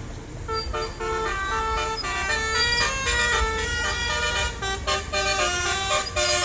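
Bus telolet horn, a multi-tone musical horn, playing a quick tune with notes changing every quarter to half second, over a low engine rumble.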